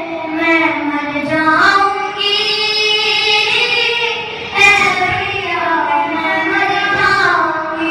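A boy singing a noha, a Shia lament, into a microphone, in long held notes that bend and waver in pitch.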